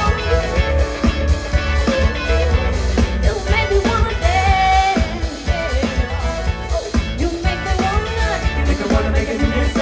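Live pop band playing an upbeat song: a steady drum beat, heavy bass and melodic lead lines, with no lyrics sung.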